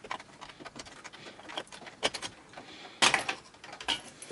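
Scattered plastic clicks and knocks of hands working the stock Intel CPU cooler's push-pin mounts loose, with a louder clatter about three seconds in.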